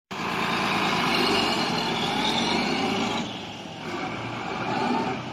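Diesel engine of a HOWO tractor truck running as the truck drives off. It is loudest over the first three seconds and drops off sharply a little after that.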